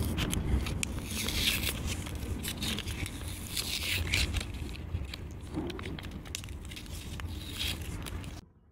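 Foam pad being peeled by hand off the top of an EVE 230 Ah LiFePO4 battery cell: a rough crackling, scraping peel with louder crackles every second or so. It cuts off suddenly near the end.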